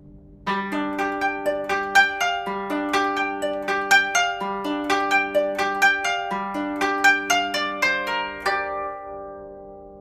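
Instrumental music: a quick melody of plucked, harp-like notes that starts about half a second in, each note ringing on, and rings away near the end.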